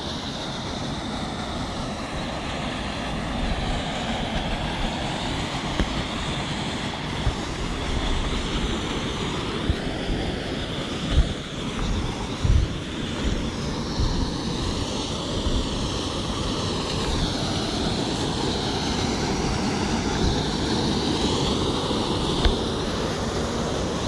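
Steady rush of a river pouring over rock slabs and a small waterfall, with a few low bumps on the microphone about halfway through.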